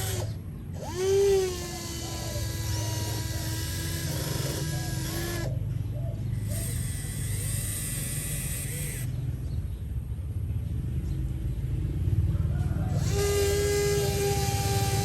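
A small electric motor whining. The whine rises in pitch about a second in, holds steady for a few seconds, stops, and starts again near the end, over a steady low rumble.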